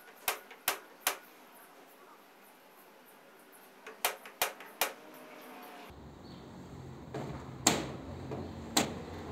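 Sharp knocks: three in quick succession, about two and a half a second, near the start, three more the same way about four seconds in, then two single knocks near the end. A low steady hum comes in about six seconds in.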